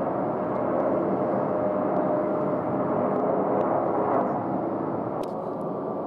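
Distant jet airliner engine noise, a steady roar that eases slightly after about four seconds.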